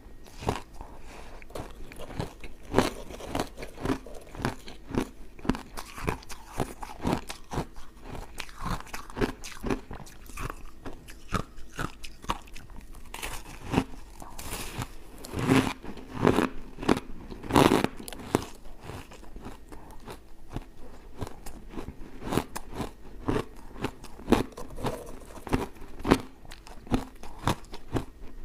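Refrozen block-ice chunks dusted with matcha powder being bitten and chewed: a continuous run of sharp crunches, with a cluster of louder bites a little past the middle.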